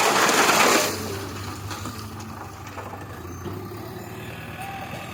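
Heavy diesel machinery engine running steadily, opened by a loud rushing hiss that lasts under a second.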